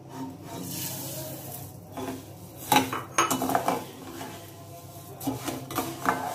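Sugar poured into hot ghee in a metal kadai, then a steel ladle scraping and clinking against the pan as it stirs. There are a few sharp knocks about three seconds in.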